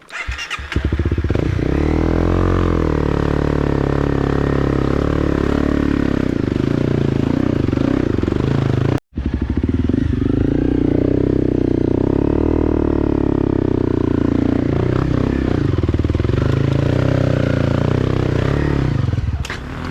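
Off-road vehicle engine working under load, its pitch rising and falling as it is revved while climbing a rough trail. The sound cuts out for a moment about nine seconds in.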